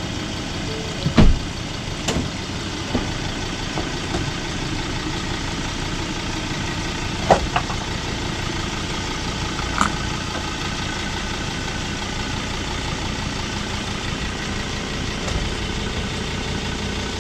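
Ford Ranger Wildtrak pickup's diesel engine running steadily at crawling speed as the truck climbs slowly over rock. There is a heavy thump about a second in and a couple of sharper knocks later on.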